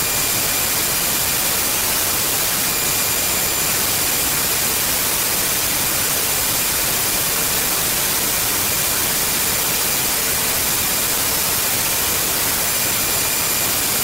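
Loud, steady static hiss of analog video snow, the sound of a blank or signal-less stretch of an old video recording. Faint steady high whistles sit within the hiss.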